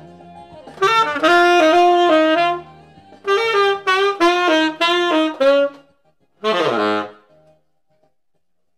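Selmer Mark VI tenor saxophone with a metal mouthpiece playing the closing melodic phrases of an R&B jazz tune. Two phrases of smooth connected notes lead to a final short note that falls off downward in pitch, then the playing stops.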